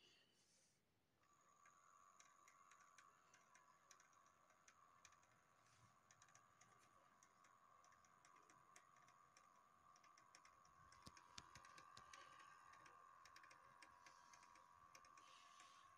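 Near silence between tracks of a vinyl record on a Sony PS-LX55 linear-tracking turntable: faint, irregular clicks and ticks of surface noise over a faint steady whine, growing slightly louder about two-thirds of the way through.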